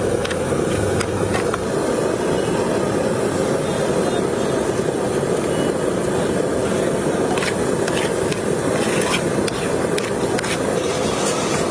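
Steady roadside street noise with traffic, broken by a few short sharp clicks in the second half.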